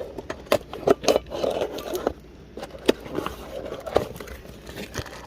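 A cardboard parts box being wrestled open and its packaging handled: an irregular run of scrapes, clicks and knocks with some crinkling.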